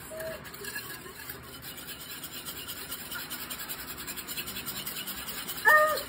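Wire whisk beating pancake batter in a ceramic bowl: a rapid, steady scraping rattle of the wires against the bowl. Near the end a short, high-pitched young child's voice is the loudest sound.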